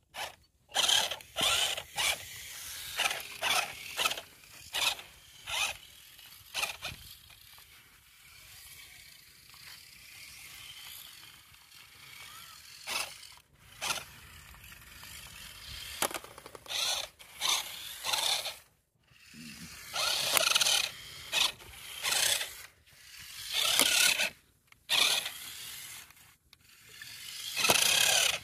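Toy RC cars' small electric motors and plastic gearboxes whirring in repeated short bursts as the wheels spin in the sand. The bursts come thick at first, thin out to a faint hiss for several seconds in the middle, then pick up again.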